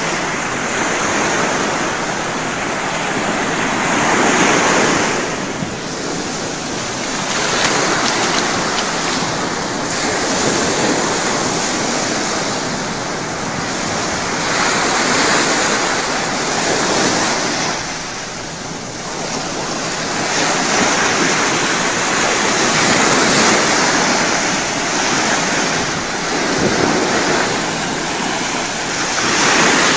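Ocean waves breaking and washing up a beach, a continuous surf noise that swells and falls every few seconds, with some wind on the microphone.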